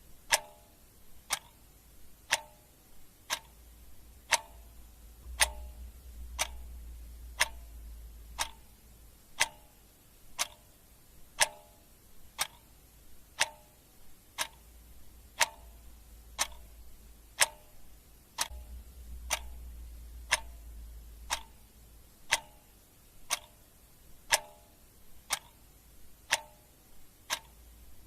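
Clock ticking steadily about once a second, the ticks alternating louder and softer, each with a short ringing tone. A faint low rumble swells up twice underneath.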